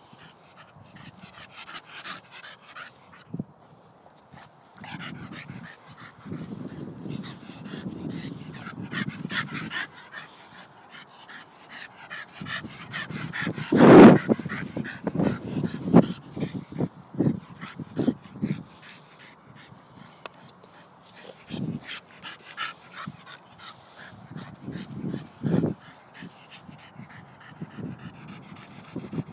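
Staffordshire bull terrier panting hard while playing, with occasional whimpers and yips. A loud thump about halfway through is the loudest sound.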